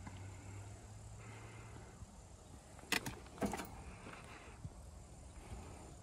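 Two sharp knocks about half a second apart, over faint outdoor background noise and a low hum that stops after about a second.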